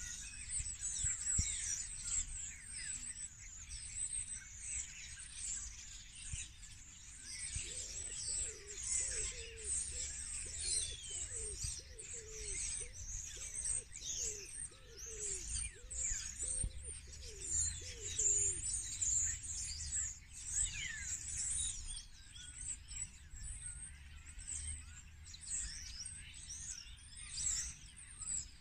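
Chorus of small songbirds chirping and trilling throughout, over a low rumble. Through the middle a lower call repeats about a dozen times, roughly once a second.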